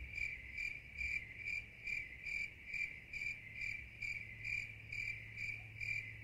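Cricket-like chirping, evenly repeated a little over two times a second, over a low steady hum.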